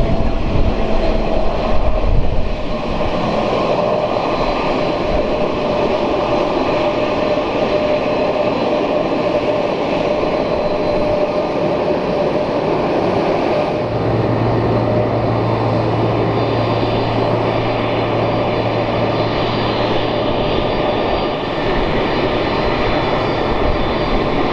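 Boeing KC-767's two GE CF6-80C2 turbofan engines running at taxi power as the jet rolls past close by: a steady jet roar with a whining tone over it.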